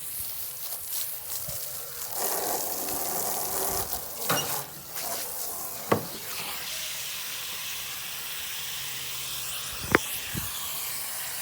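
Water running steadily into a bucket as it is filled, a constant hiss and splash. Two short knocks come about six and ten seconds in.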